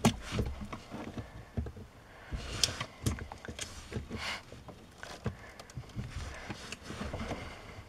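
Flat-blade screwdriver clicking and scraping against the plastic retainer clip and connector on an accelerator pedal position sensor as the clip is pried loose, in irregular light clicks and short scrapes.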